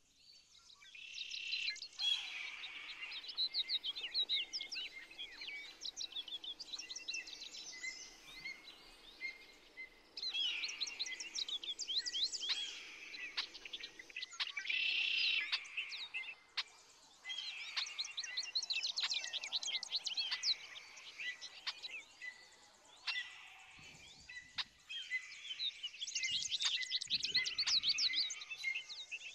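Songbirds singing: long, rapid phrases of high chirping and warbling notes, each lasting several seconds and repeated after short pauses.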